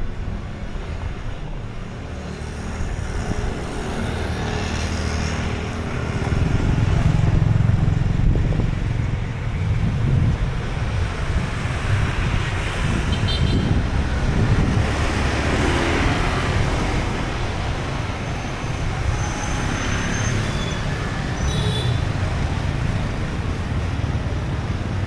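Street traffic: cars and motorbikes passing, with a deep rumble that swells about six seconds in.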